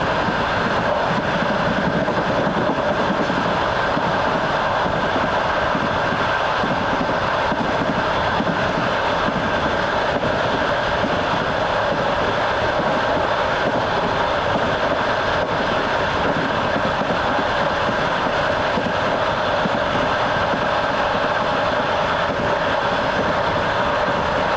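Train running steadily at speed, heard on board: continuous rolling noise of the wheels on the rails with a steady hum through it.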